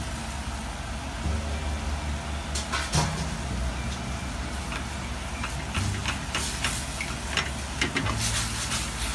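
Sake bubbling and sizzling in a hot frying pan of scallops and mushrooms over a gas flame, just poured in to steam-cook them, with a steady low hum underneath. Near the end a utensil scrapes and stirs through the pan.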